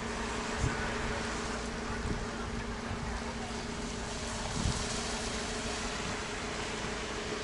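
Town street ambience: a steady droning hum under a wash of traffic noise, with a few scattered low thumps.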